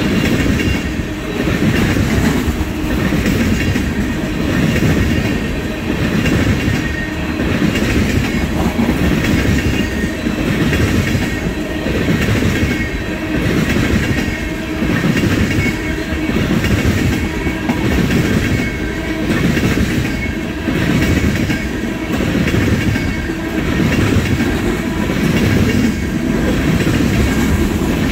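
Steel wheels of a long train of tank cars rolling past on the rails: a steady loud rumble with repeated knocks, swelling and fading about every two seconds.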